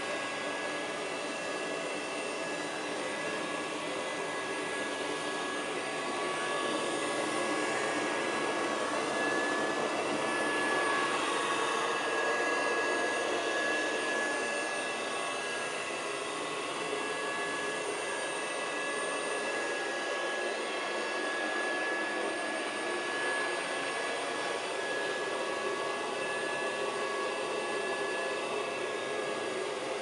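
Miele Scout RX3 robot vacuum cleaner running as it cleans a carpet: a steady rushing hiss with a high whine over it, a little louder for several seconds about a third of the way in.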